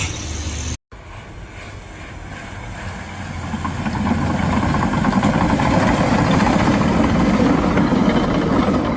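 A heavy vehicle's engine running, growing louder over the first few seconds and then holding steady, after a brief cut from a hissing sound.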